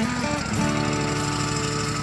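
Background song with guitar over an engine running with a fast, even pulse.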